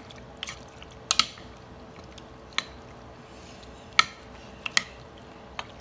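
A metal spoon stirring octopus tentacles in an egg-and-fish-sauce marinade, clinking irregularly against the mixing bowl about eight times, loudest about four seconds in.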